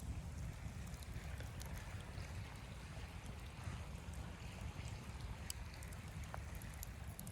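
A steady low rumble with scattered faint clicks and crackles.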